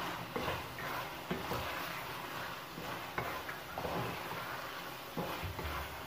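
Wooden spoon stirring and scraping frying chicken and vegetables in a metal kadai, in irregular strokes over a light sizzle.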